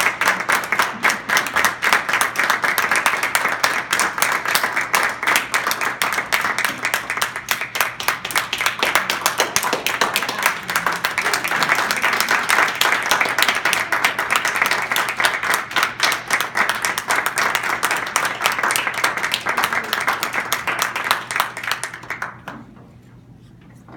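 A small group of people applauding, a dense stream of hand claps that stops fairly suddenly near the end.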